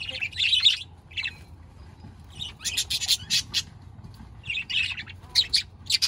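A flock of budgerigars chirping and chattering in irregular bursts of short, high calls.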